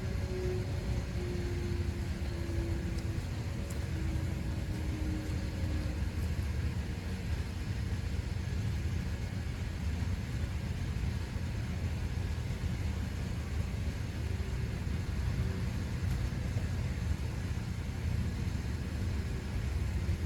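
Faint wail of a Whelen WPS-4004 electronic outdoor warning siren, falling slowly in pitch and fading out about six seconds in. A steady low rumble runs throughout and is the loudest sound.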